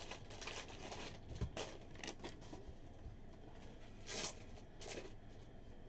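Foil and plastic trading-card pack wrappers crinkling and rustling as they are handled, with a few soft clicks and a louder rustle about four seconds in.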